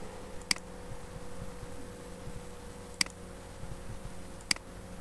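Three single sharp computer mouse clicks, spaced a second or two apart, over a steady low hum.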